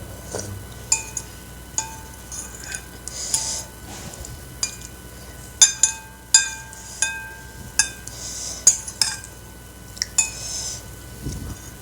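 Metal eating utensils clinking and scraping against a bowl of noodle soup, a dozen or so short ringing clinks, the loudest cluster in the middle of the stretch.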